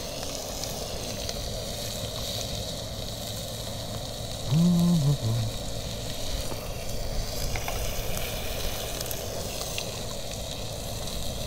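Sausages and meat sizzling on a portable gas grill, a steady hiss. About halfway through, a short hummed 'mm' from a person's voice.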